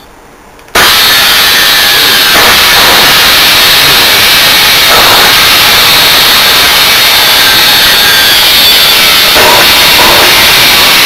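Maktec abrasive metal chop saw's universal motor switched on, starting abruptly about a second in and running loud and steady at full speed. The brushes arc heavily at the commutator, flashing through the vents. The owner takes this for more than bouncing brushes and suspects a burnt-out armature.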